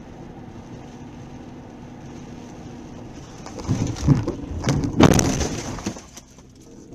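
Steady road noise inside a car, then a bit over three and a half seconds in, a run of loud crashing impacts and crunching over about two seconds: a car collision heard through a dashcam, fading to quieter noise afterwards.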